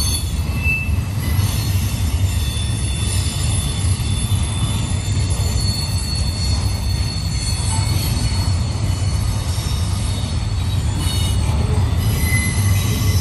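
Double-stack container cars of a CSX intermodal freight train rolling past on steel rails: a steady low rumble of wheels on track, with faint thin high squeals from the wheels coming and going.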